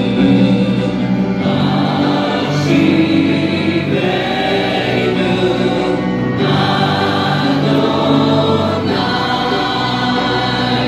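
A congregation and worship team singing a worship song together with musical accompaniment, in long held phrases that change every few seconds.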